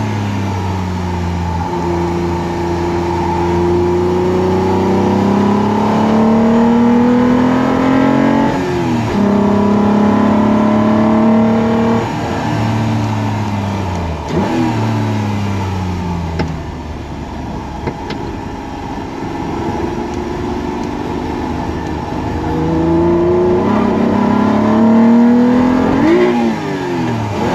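Toyota MR2 Spyder's engine heard from inside the cabin under hard acceleration. The revs climb steadily in each gear and drop sharply at upshifts about nine and twelve seconds in. They fall away through the middle, then climb again to another shift near the end.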